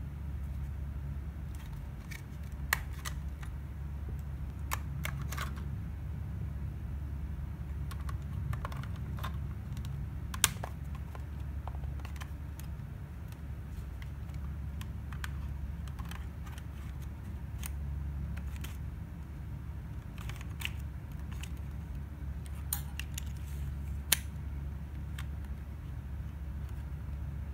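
Scattered clicks and taps of a plastic Fujifilm Chic Motor compact film camera and a 35mm film roll in its foil pouch being handled, with the camera back opened for loading, and a few sharper clicks. A steady low hum runs underneath.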